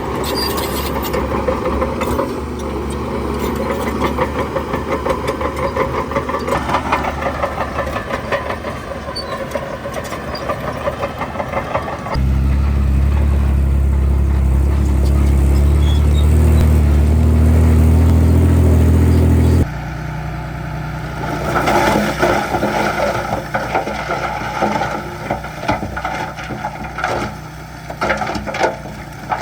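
Heavy diesel construction machinery, a bulldozer and dump trucks, running at work. The engine sound has a fast rhythmic clatter at first. About twelve seconds in it cuts to a louder, steady low drone, and about twenty seconds in it cuts back to engine sound mixed with repeated knocks and rattling.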